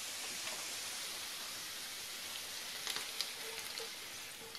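Steady sizzling hiss from a pan of risotto on a ceramic hob, with a few light clicks and scrapes about three seconds in as chanterelles are spooned into it.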